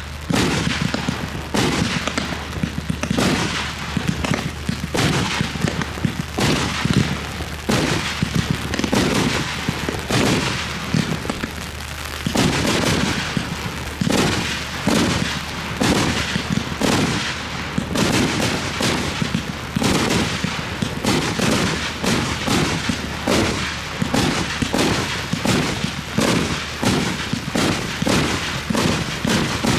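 Fireworks display firing a continuous rapid barrage of bangs, several a second, with no pause.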